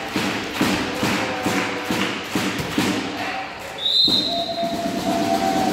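Rhythmic thumping in an echoing sports hall, about two and a half beats a second, then one short blast of a referee's whistle about four seconds in.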